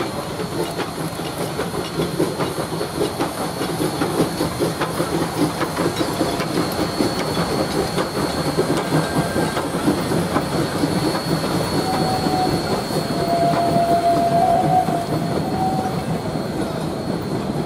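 Doubleheaded coal-fired narrow-gauge steam train, D&RGW 2-8-0 No. 346 and RGS 4-6-0 No. 20, passing close by with steam hissing. It is followed by a long, fast clickety-clack of wheels over the rail joints as the coaches and caboose roll past.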